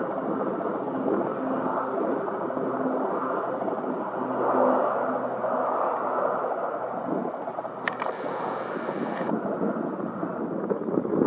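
Aircraft engine noise, a steady rushing rumble. About eight seconds in comes a sharp click, then a brief hiss that cuts off suddenly.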